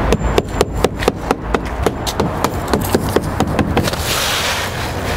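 Hand hammer driving roofing nails through asphalt shingles over a plastic intake vent: a quick run of sharp strikes, about three or four a second. About four seconds in the strikes give way to a brief scraping hiss.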